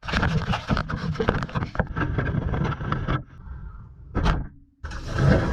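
Water jets from an LG dishwasher's spray arm pelting the camera's housing during the rinse cycle: dense splashing and pattering. Past the middle the spray falls away for about a second and a half, apart from one brief surge, then comes back at full strength near the end.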